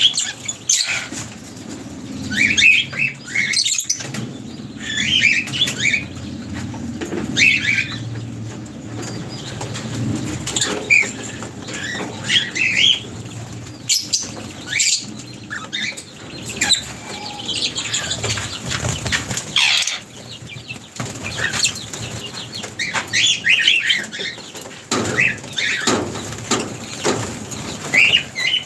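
A flock of birds feeding: repeated short chirps and frequent wing flaps as birds come and go.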